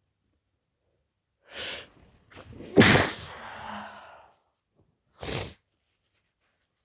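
A woman sneezing during a sneezing fit: a sharp intake of breath about a second and a half in, a couple of small catching breaths, then one loud sneeze just under three seconds in that trails off over about a second, and a short breath a little after five seconds.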